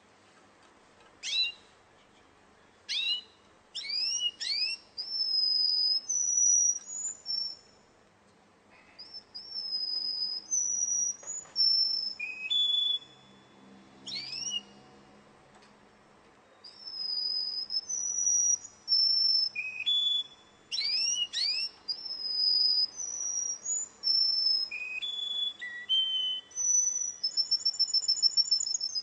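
Russian-type domestic canary singing in phrases: sharp downward-sweeping chips, then clear high whistled notes with short pauses between phrases, ending in a fast trill near the end.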